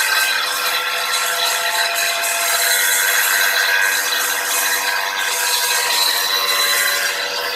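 A handheld power tool grinding steadily against the floor, a continuous rasping noise with a steady whine through it.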